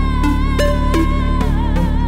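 Deep house music: a long held high note that wavers, over steady bass and scattered percussion hits.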